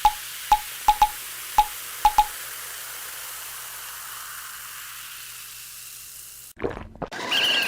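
Water-drip plinks, about nine quick drops in the first two seconds, over a steady sizzling hiss that slowly fades. Near the end a short rough burst is followed by a high whistling tone.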